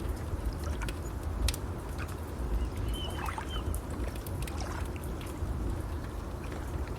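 Fire crackling with scattered sharp pops over a steady low wash of water, and a short bird chirp about three seconds in.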